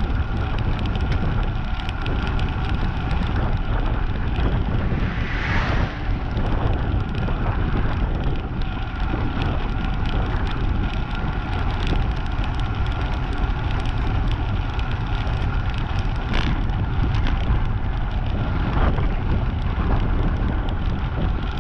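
Wind buffeting the microphone of a camera on a moving bicycle: a steady, heavy low rumble, with a brief louder whoosh about five seconds in.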